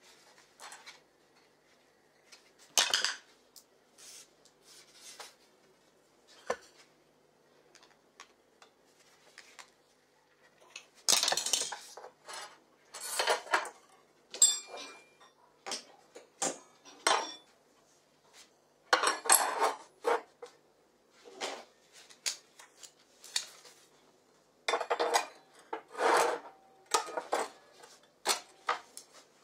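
Metal tools and pieces clinking and clattering on a ceramic tile floor as they are handled and set down, in irregular short bursts with quiet gaps between them. Among them is a steel bar clamped in locking pliers.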